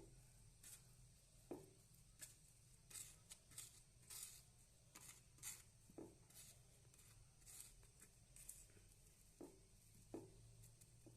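Near silence: faint scattered rustles and a few soft short ticks over a low steady hum.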